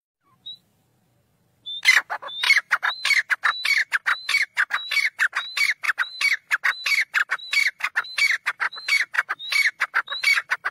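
Grey francolin calling: a fast, loud run of repeated two-part phrases, about two a second, each a short high rising note followed by a lower falling one. It starts about two seconds in after a single short note and cuts off abruptly at the end.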